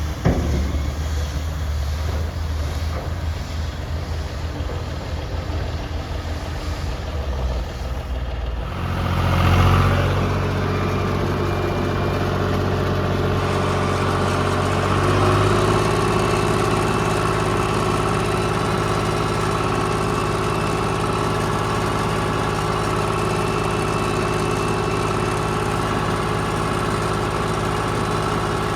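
Heavy earthmoving machine's engine running at a low idle, then revving up about nine seconds in and holding a steady, higher working speed, with another small step up in pitch a few seconds later.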